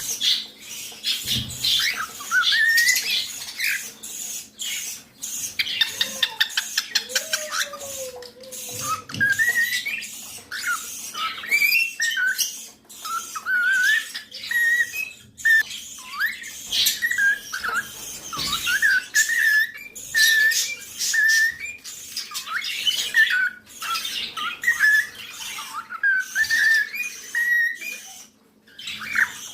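Cockatiel chattering: a long series of short, warbling chirps and whistles broken by harsher squawks, with a quick run of ticking calls about six seconds in.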